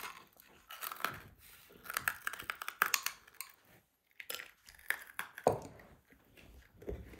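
Metal spoon scraping and clicking against porcelain dishes as crushed garlic is spooned into a bowl of soup, a run of short clicks and scrapes with a sharper knock about five and a half seconds in.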